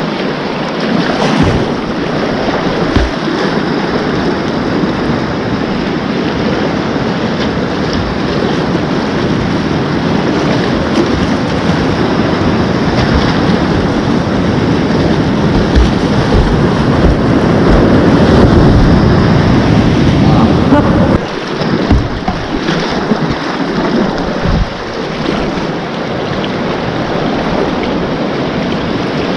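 Whitewater rapids rushing loudly around a kayak, with the splashes of paddle strokes. The rush swells past the middle, then drops off suddenly about two thirds of the way through.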